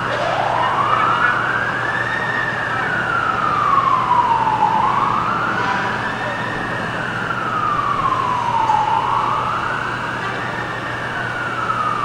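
Emergency vehicle siren wailing, starting low and winding up, then rising and falling slowly about every four seconds, three times, over steady background noise.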